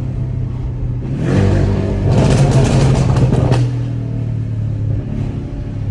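Remapped Porsche 718 Cayman with a stainless-steel exhaust accelerating. About a second in, the engine revs rise, then the loudest stretch comes, with a run of sharp exhaust pops and crackles from the pops-and-bangs tune. Near the end it settles back to a steadier, lower note.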